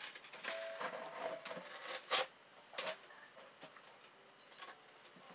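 Packing tape being pulled and peeled off a small metal-framed laser engraver, with crackling and rubbing handling noise and sharp ticks about two and three seconds in, then quieter handling.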